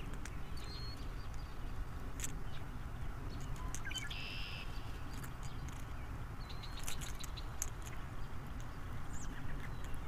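Quiet outdoor ambience: a steady low rumble with scattered light clicks from handling a hooked lure in a largemouth bass's mouth, and a few short bird chirps, including one buzzy call about four seconds in.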